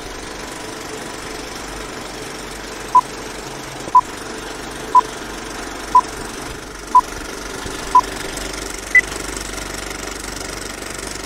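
Old film-leader countdown sound effect: a steady film projector rattle and hiss, with a short beep once a second, six in all, then one higher-pitched beep.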